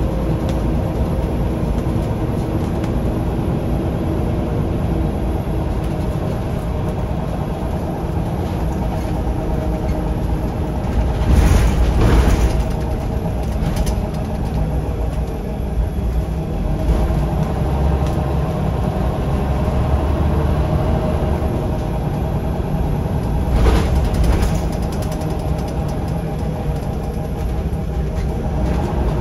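Scania L94UB/Wright Solar single-decker bus heard from inside the passenger saloon: its rear-mounted nine-litre five-cylinder Scania diesel and drivetrain running steadily, with a low rumble and a steady hum. Twice the noise briefly swells into a louder rumbling jolt.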